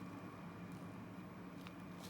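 Faint handling of a padlock and its key, with two small clicks, over a steady low hum.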